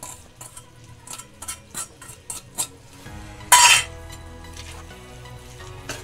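A small steel bowl is tapped about eight times, growing louder, against a steel kadhai to shake out chopped coriander. About three and a half seconds in comes a single loud clatter of metal on metal, then a steel spoon stirs the sabzi over a low sizzle.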